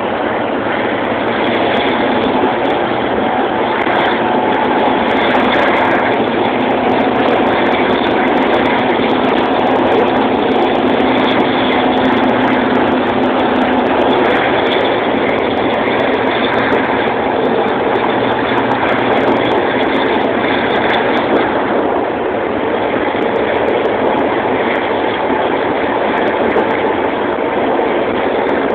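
Passenger train in motion, heard from inside a coach: a steady rolling rumble of the running train, with a held low hum from about two to fourteen seconds in.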